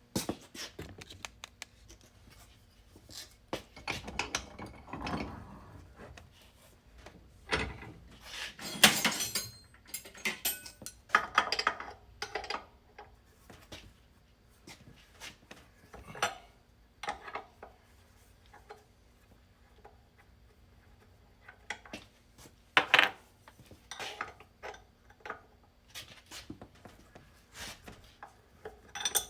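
Irregular clanks, knocks and rattles of metal parts and hand tools being handled at a bench vise while tight fittings are worked out of an aluminium block, the loudest knocks about nine seconds in and again near the end. A faint steady hum runs underneath.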